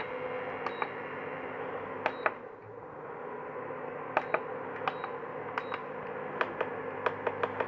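Induction cooker control buttons being pressed: about fifteen sharp clicks, often in pairs, some followed by a short high beep, over a steady hum. The newly fitted power switch is responding to a single press each time.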